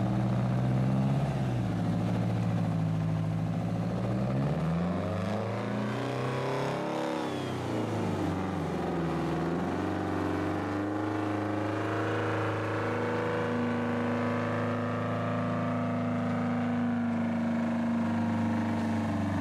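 Detroit Diesel V71 two-stroke diesel, run without its turbo through tall open stacks, pulling a loaded car-hauler trailer away. The engine pitch drops and climbs again a few times through the first half, then holds steady.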